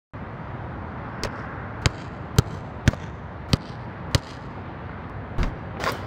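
A basketball being dribbled on an outdoor court: six sharp, evenly spaced bounces, then a thump and a brief swish as the ball drops through the hoop's net near the end.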